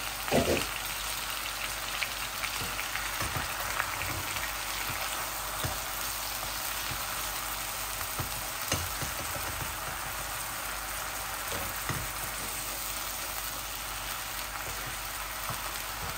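Chicken pieces frying in oil in a nonstick frying pan, with a steady sizzle. A wooden spatula stirring them gives occasional knocks and scrapes against the pan, the loudest about half a second in.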